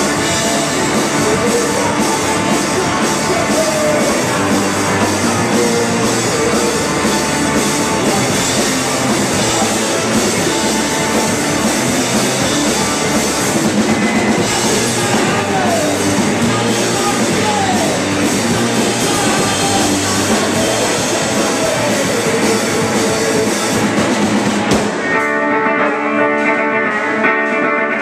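Live rock band playing loudly: electric guitars, electric bass and a drum kit with cymbals. About three seconds before the end the drums and cymbals drop out, leaving sustained guitar chords ringing.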